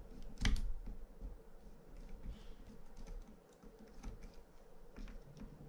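Small irregular metal clicks and scrapes of a mini screwdriver turning a small screw in a Penn International 12H fishing reel, with one louder click about half a second in.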